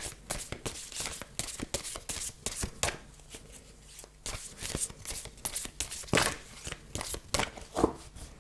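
A deck of oracle cards being shuffled by hand: quick, irregular papery clicks and slaps, with a short pause about halfway and a few louder single snaps in the second half.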